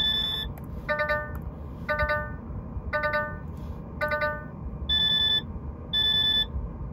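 DAF CF85 truck's cab warning buzzer beeping about once a second. It opens with a high two-tone beep, gives four lower beeps each made of several tones together, and switches back to the high two-tone beep about five seconds in.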